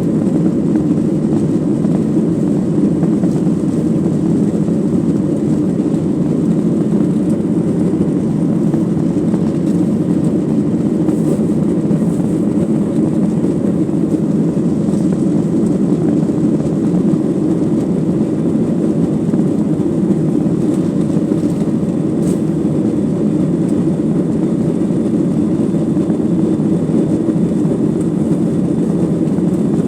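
Steady, unchanging rumble of a Boeing 737-900ER airliner cabin in flight, heard from a seat at the back: the two CFM56-7BE turbofan engines and airflow over the fuselage.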